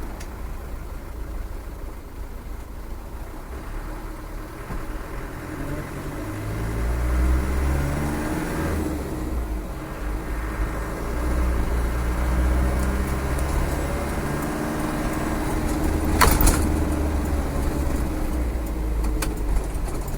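Land Rover 300Tdi 2.5-litre four-cylinder turbodiesel driving on the road. The engine note rises under acceleration about six seconds in, dips briefly around nine seconds, then pulls again. A sharp knock comes about sixteen seconds in.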